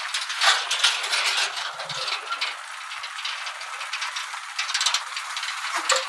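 Empty steel tractor trolley rattling and clanking over a rough dirt track: rapid loose knocks through the first couple of seconds, easing off, then picking up again near the end, over a steady hiss.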